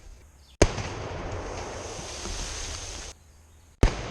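Two shots from a Civil War 24-pounder flank defense cannon, about three seconds apart, each a sharp report followed by a long rolling echo. The first echo cuts off abruptly just before the second shot.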